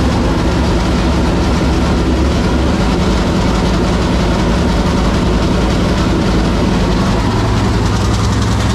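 Chevrolet SB2 small-block V8 race engine in a Super Late Model dirt car, running loud and steady without revving, on its first run after being swapped in.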